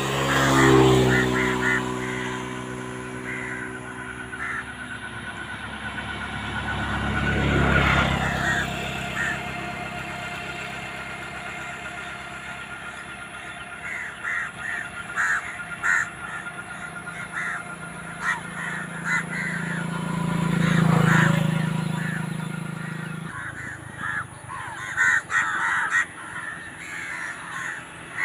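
Crows cawing in short repeated calls, while a motor vehicle passes three times, each one swelling and fading with a falling pitch.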